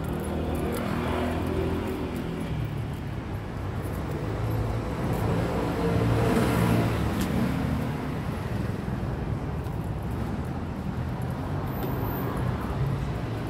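Street traffic: a steady rumble of cars, with a car passing and swelling loudest about six seconds in.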